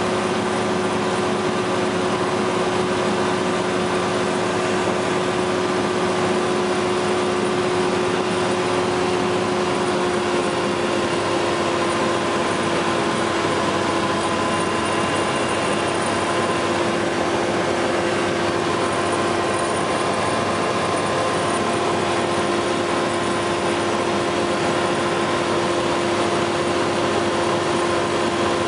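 FlightStar ultralight's engine and propeller droning steadily in cruise flight, over a constant rush of wind noise. The engine note eases slightly lower about ten seconds in, then holds steady.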